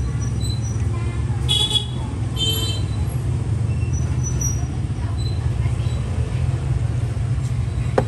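Steady low rumble of road traffic with two short, high-pitched vehicle horn toots, one about one and a half seconds in and another about a second later.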